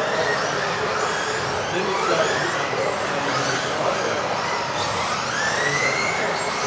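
Several electric RC off-road race buggies lapping a track, their motors whining and gliding up and down in pitch as they accelerate and brake, over a steady rush of running noise.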